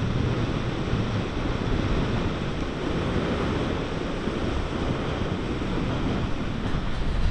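Steady rush of water and spray off the hull of a Moggaro 1800 aluminium passenger boat running at speed, mixed with wind buffeting the microphone.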